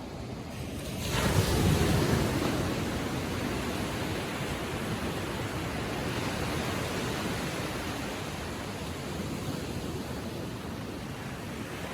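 Ocean waves on the shore: a wave comes in and breaks about a second in, then its wash slowly fades back into the steady hiss of surf.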